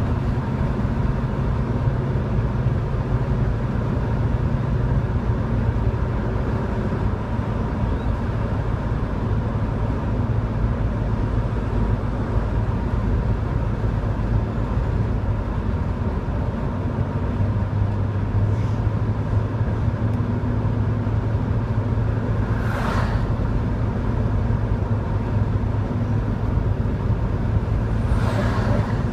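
Steady engine drone and road noise heard inside a Chevrolet Chevelle cruising on the open road. Oncoming traffic passes twice with a brief rush, the second time a tractor-trailer near the end.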